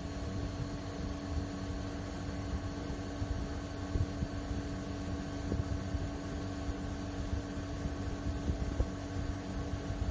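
De'Longhi Pinguino PAC EM82 portable air conditioner running: a steady fan and compressor hum with several constant tones over a low, uneven rumble.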